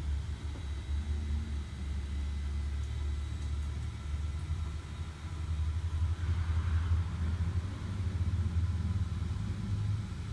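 Vehicle engine idling with a low, steady rumble, a little louder from about six seconds in.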